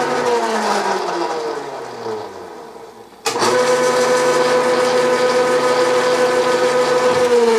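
Bridgeport milling machine's spindle motor running while power-tapping a hole in a steel plate. Over the first three seconds it winds down, its pitch falling. A sharp click about three seconds in, then it runs steadily again as the tap is backed out.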